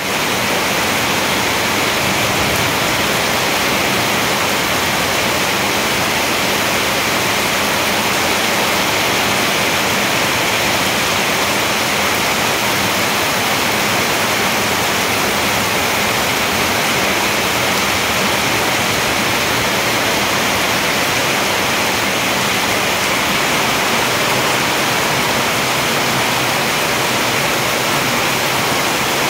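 Heavy rain pouring down steadily onto leaves and the roof overhead, with water streaming off the roof edge, as one even, unbroken rush.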